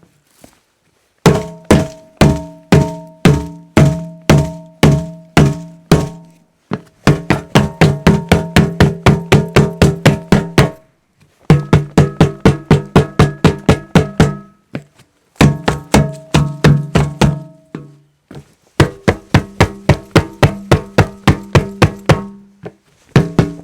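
A hollow object struck over and over, in six runs of quick knocks separated by short pauses. Each knock rings briefly with a low, pitched tone that changes from one run to the next, and some runs go faster than others, up to about four knocks a second.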